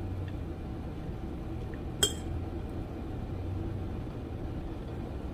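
A single light clink of a utensil against a dish about two seconds in, over a steady low hum.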